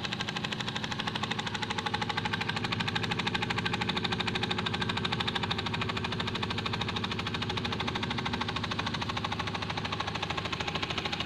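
Small homemade steam engine running fast under test, its strokes making a quick, even knocking beat.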